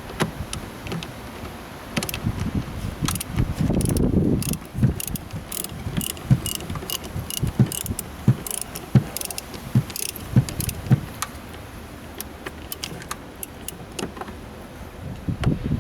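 Metal hand tools clicking and knocking while a car battery is swapped. A run of light, evenly spaced metallic clicks, about two or three a second, goes from about four seconds in to about ten seconds, with scattered knocks before and after.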